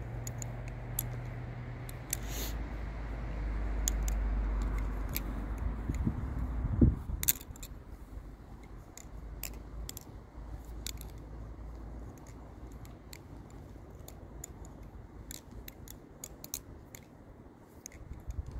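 Balisong (butterfly knife) doing repeated rollovers: light, irregular clicks of the handles swinging on their pivots and knocking against the blade. A low rumble sits under the first seven seconds, peaking just before the seventh.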